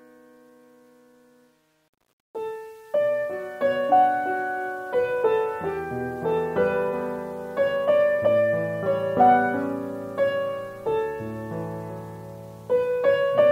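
Background piano music: a held chord dies away, a short silence follows, and about two seconds in a new piano tune begins, its struck notes each fading before the next.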